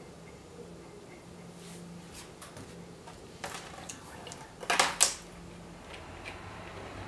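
Small clicks and knocks from painting tools handled on a work table, including a metal palette knife and paint containers. There are a few light taps, then two sharp clicks about five seconds in.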